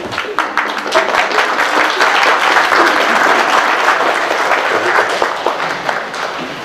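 Audience applauding, swelling quickly at the start and thinning out near the end.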